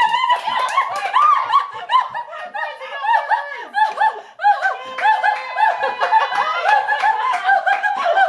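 High-pitched laughter: quick giggles and snickers, one short rising-and-falling note after another.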